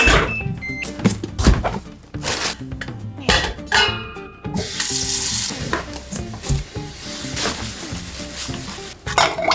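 Kitchen tap running hard into a steel pot in the sink for several seconds, after knocks and a short squeak as a styrofoam box is set down and handled. Plastic bags crinkle near the end, over light background music.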